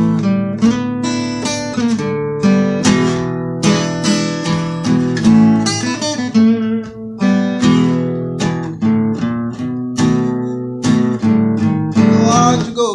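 Acoustic guitar playing a blues figure: a steady run of picked notes and strums that ring on between strokes.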